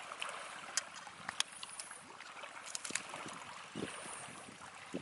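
Steady trickling water on a wet rocky shore, with scattered sharp clicks and taps and a soft thump a little before four seconds in as a fish is worked free of a nylon gill net on the rock.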